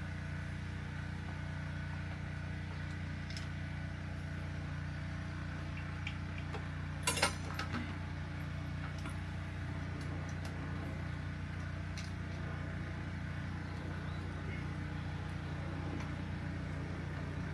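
A few light metal clinks of bike hardware and tools being handled, the loudest a quick double clink about seven seconds in, over a steady low hum.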